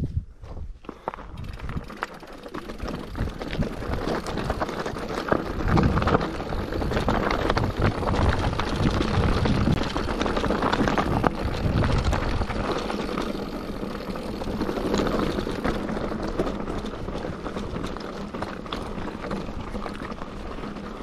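Mountain bike rolling over a loose, rocky trail: tyres crunching and skittering over stones with a running rattle of the bike's parts. It builds a couple of seconds in, is loudest through the middle, and eases off toward the end.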